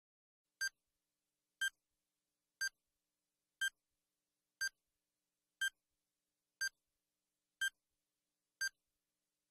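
Quiz countdown timer sound effect: a short electronic beep once a second, nine in a row, marking the seconds running out.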